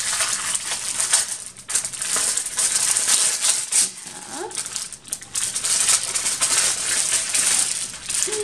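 Crinkling and rustling of a packet's packaging being handled and torn open by hand, in irregular surges.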